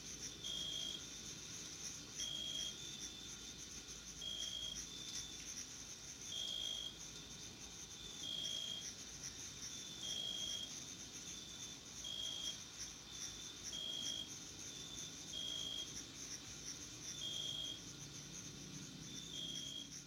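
Meadow insects chirring in a steady, high-pitched drone, with a short high note repeating about every two seconds.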